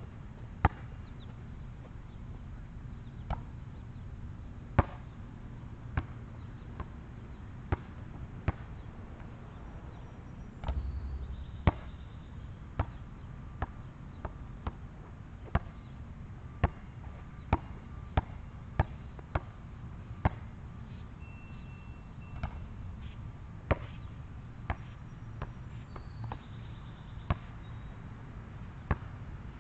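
A basketball bouncing on an asphalt court: single sharp bounces, irregularly spaced, mostly about a second apart.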